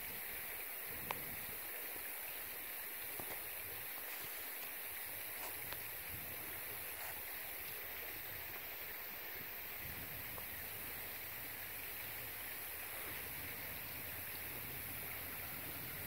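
Faint, steady forest ambience: an even hiss with no distinct calls or voices, and one small click about a second in.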